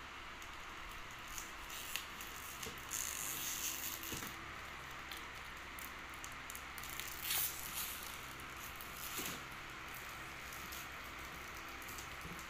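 Plastic cake packaging crinkling and rustling as it is handled by small hands, in short bursts that are loudest about three seconds in and again about seven seconds in, over a faint steady hiss.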